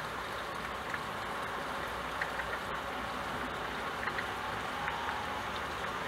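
Steady rain hiss with a few light, scattered drop taps.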